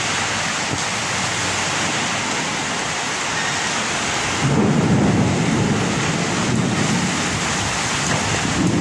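Heavy rain pouring steadily during a thunderstorm, with a low rumble of thunder coming in about halfway through and swelling again near the end.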